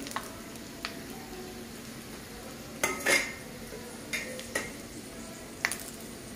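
Whole spices (cumin, dried red chillies, bay leaves and cardamom) sizzling in hot oil in a kadhai, with about six sharp clinks and scrapes of a metal spatula against the pan, the loudest about three seconds in.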